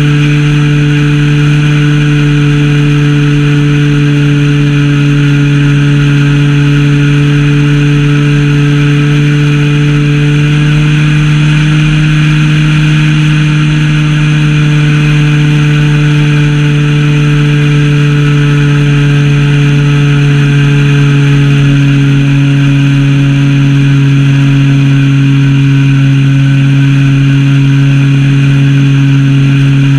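Zenoah ZP 20 two-stroke gasoline engine of a Super Senior 80 RC plane running at steady cruise throttle, heard from on board the plane. Its pitch rises slightly about a third of the way in and eases back a little later.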